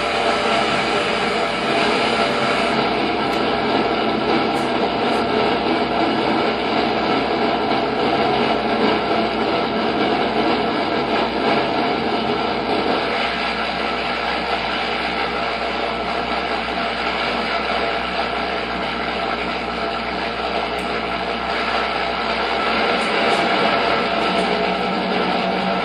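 Electric razor buzz, picked up by a pickup and an electromagnetic mic and run through effects pedals into a thick, steady drone with many held tones. The low end thins out about halfway through.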